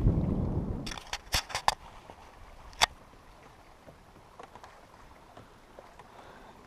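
Wind buffeting the microphone with a low rumble, cutting off abruptly about a second in. Then a quick run of sharp clicks and knocks from fishing gear handled in a kayak while a fish is played on a bent spinning rod, and one more click about a second later.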